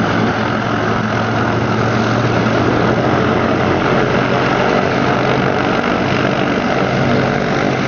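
Piston engines of a propeller-driven aircraft running steadily: a continuous low drone with a broad rushing noise over it.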